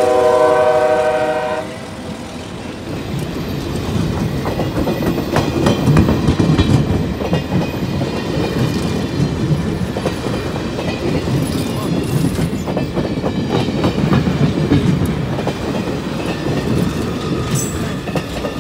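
Diesel locomotive air horn sounding a chord that cuts off under two seconds in, followed by passenger cars rolling past close by, their wheels clacking on the rails.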